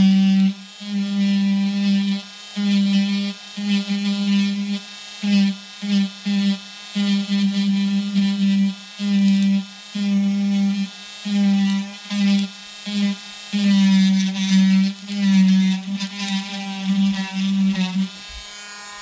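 Handheld rotary tool with a carving bit running at a steady speed. Its high buzz grows loud in many short strokes as the bit is pressed into a juniper trunk to strip bark and carve out a shari. The strokes stop near the end and the tool is left running quietly.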